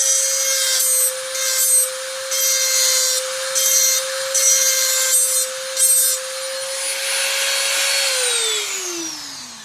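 A small high-speed rotary tool running with a steady whine, its bit grinding in short repeated passes against the toy car's wheel well. About eight seconds in it is switched off and the whine falls in pitch as it spins down.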